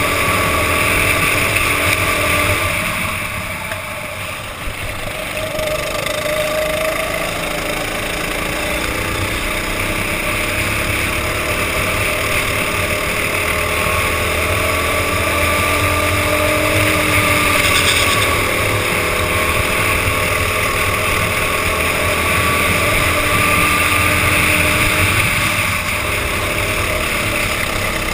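Go-kart engine running hard under the driver's seat, heard through a helmet camera's waterproof housing. It eases off about three seconds in, then pulls back up, its pitch rising and falling through the bends.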